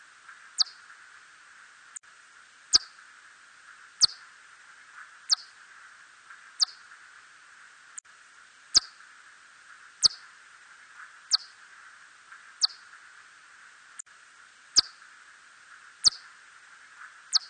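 Korean red bat (Myotis rufoniger) calls: short, sharp chirps that sweep downward in pitch, one roughly every 1.3 seconds, over a steady hiss.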